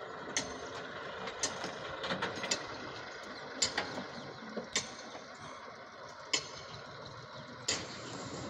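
Diesel engines of the backhoe loader and tractors running, with a steady rumble and sharp clanks several times, about one a second.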